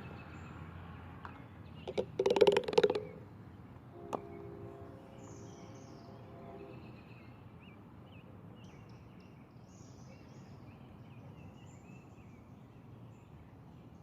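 Birds chirping over quiet outdoor ambience, with a short loud burst of handling noise about two seconds in and a brief steady hum a few seconds after it.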